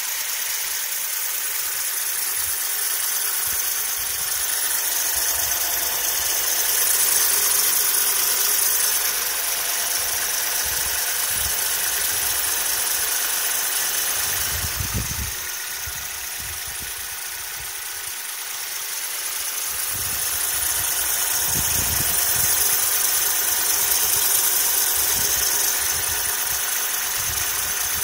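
Opel Astra H's Z16XER 1.6-litre four-cylinder petrol engine running, with a whistle from its faulty drive-belt tensioner pulley. The sound swells and eases a couple of times.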